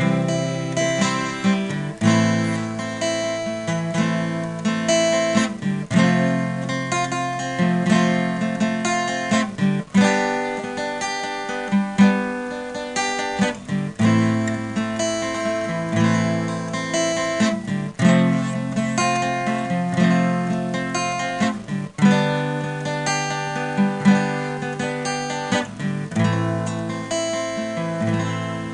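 Instrumental music: acoustic guitar strumming sustained chords, a new chord struck about every two seconds, fading out at the very end.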